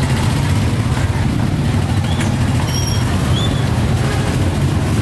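Steady low rumble of road traffic, with a few faint, short high chirps between about two and three and a half seconds in.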